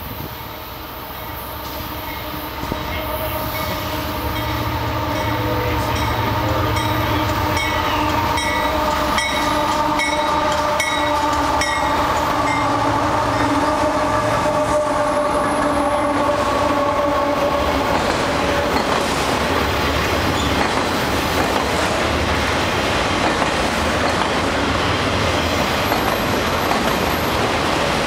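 A freight train led by two GE diesel locomotives approaches and passes: the locomotive horn sounds a long multi-note chord for more than ten seconds over the low diesel rumble. The horn stops about two-thirds through, leaving the steady rolling and wheel noise of the passing autorack cars.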